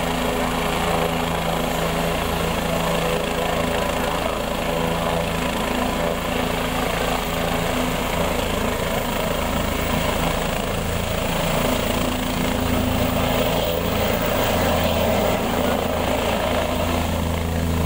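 Helicopter running on a helipad: a steady engine and rotor drone whose low beat grows stronger in the last few seconds.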